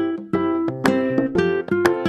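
Background music: plucked ukulele or guitar notes in a light, bouncy rhythm.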